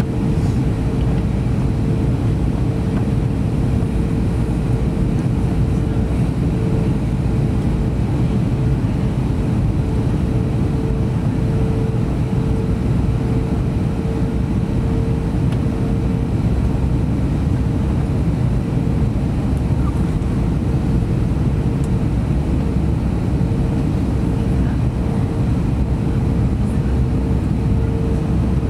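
Cabin noise inside an Airbus A321neo airliner during its descent: a steady rumble of airflow and engines, with a steady mid-pitched hum running through it.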